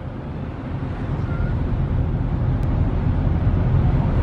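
Low rumble of a boat's engine under way, mixed with wind buffeting the microphone, growing steadily louder.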